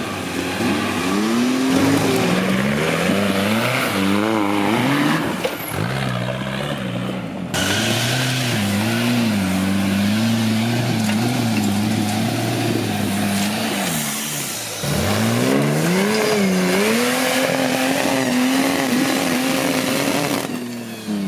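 Off-road buggy's engine revving hard as it claws up a steep dirt slope under load, the pitch repeatedly rising and falling with the throttle. The sound breaks off abruptly and resumes a couple of times.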